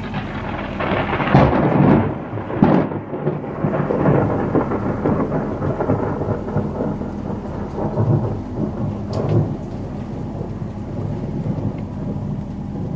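Thunder: a loud rolling rumble that builds in the first couple of seconds, peaks about two to three seconds in, then slowly fades, with a smaller swell about nine seconds in. Under it runs the steady hum of the boat's outboard motor.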